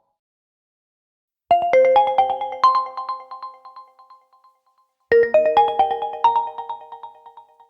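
Oppo ColorOS 11 phone ringtone: a short phrase of quick chiming notes that ring on and fade, heard twice, starting about a second and a half in and again about five seconds in.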